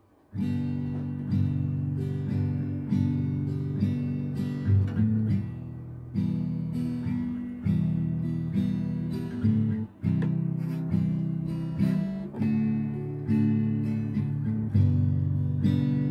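Background music: an acoustic guitar playing plucked and strummed notes, starting about half a second in.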